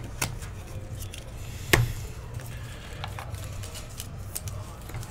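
Trading cards being handled: flipped through in a stack and slid into a clear plastic sleeve. Light rustling and scattered clicks, with one sharp click nearly two seconds in.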